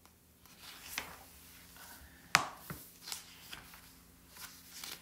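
Pages of a large softcover book being flipped through by hand: a series of paper slaps and rustles, the sharpest snap coming a little past two seconds in.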